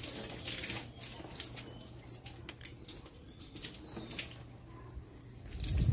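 Water from a garden hose spattering and dripping on a wet scooter and concrete in light, scattered splashes over a faint steady hum; near the end a louder gush of water starts.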